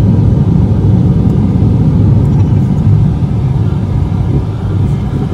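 Steady low rumble of a moving car, road and engine noise heard from inside the vehicle.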